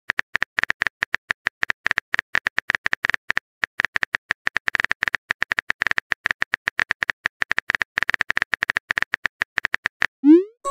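Typing-style text sound effect: rapid, irregular clicks at one pitch, several a second, which stop about ten seconds in. A short rising glide follows near the end.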